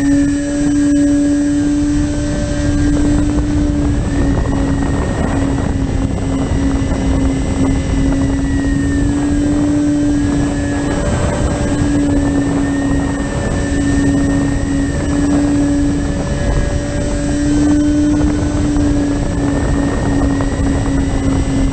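Electric motors and propellers of an MTD FPV plane droning steadily in flight, their pitch wavering slightly as the throttle changes, over a constant rush of air noise.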